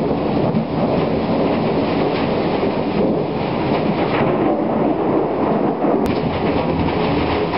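Thunderstorm: a steady, continuous low rumble of rolling thunder. One short click comes about six seconds in.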